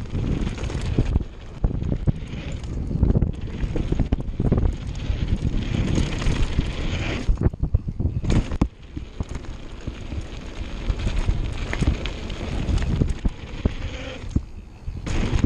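Wind buffeting the action camera's microphone as a mountain bike rides fast down a dirt trail, with tyre rumble and frequent knocks and rattles from the bike over bumps. It goes briefly quieter about eight and a half seconds in.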